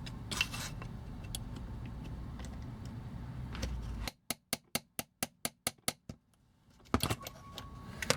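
A quick run of about nine light, sharp taps, four or five a second, on a pin punch as it drives a metal pin out of a die-cast toy. Before the taps there is a low hum with small handling clicks, and a single knock comes near the end.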